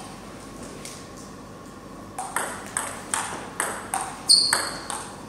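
Table tennis rally: after a quiet pause while the serve is set up, the ball starts clicking off rubber paddles and the tabletop about two seconds in, about three hits a second. One louder hit a little past four seconds carries a brief high squeak.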